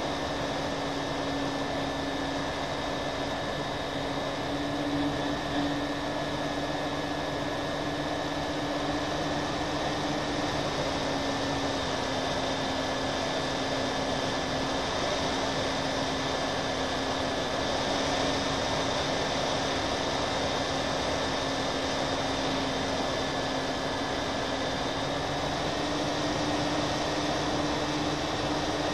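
Twin motors and propellers of a radio-controlled FPV model airplane running steadily in flight, heard from the onboard camera with a rush of air over it. Their pitch dips slightly about eleven seconds in and rises again near the end as the throttle changes.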